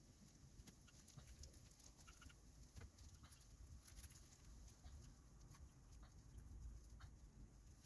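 Near silence with faint scattered clicks and light scratching: small handling sounds of work at a bench.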